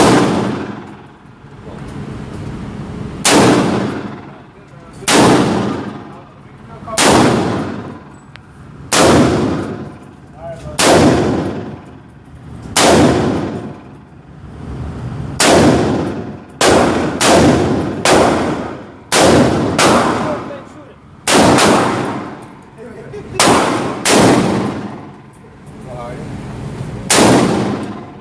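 Rifle shots fired one at a time, about twenty of them, roughly every two seconds at first and quicker in the middle stretch, each with a long echoing tail.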